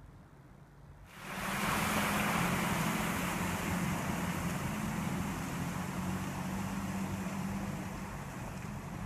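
Land Rover Series 4x4 wading through a flooded trail: water splashing and surging around the wheels over the steady run of its engine. It starts abruptly about a second in and eases slowly.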